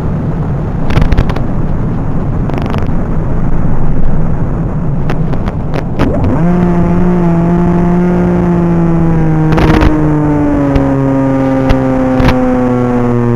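RC flying wing's motor and propeller droning, with a rushing wind noise and a few sharp knocks in the first half. About six seconds in, a strong steady propeller drone sets in and then slowly falls in pitch.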